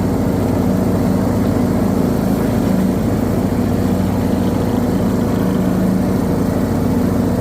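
Briggs & Stratton 19 hp engine of a John Deere D110 lawn tractor running at a fairly steady speed.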